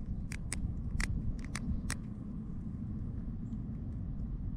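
Handling sounds of a freshly dug coin and soil: about six short sharp clicks in the first two seconds, over a steady low rumble.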